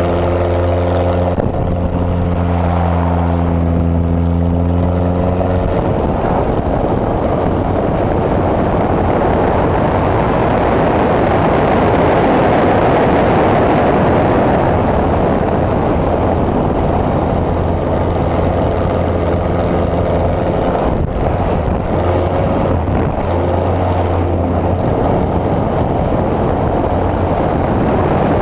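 Pitts S-1S aerobatic biplane's engine and propeller in flight, with heavy air noise across the wing-mounted microphone. The steady engine note is clear at first. About six seconds in it fades under a rising rush of air that is strongest near the middle, and the engine tone comes back partly later on.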